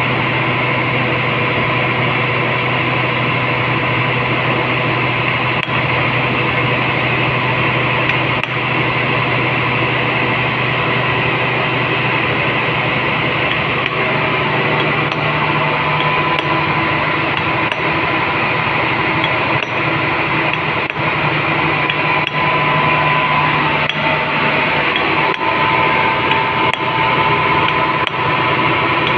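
Steady, loud drone of running plant machinery with a constant hum. Over it, a few light, scattered taps of a hammer striking a punch held on a gasket sheet, cutting out a gasket.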